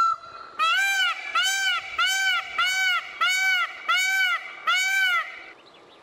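Indian peafowl (peacock) calling: the tail of a long call at the start, then a run of seven short calls at an even pace, about three every two seconds, each rising and falling in pitch.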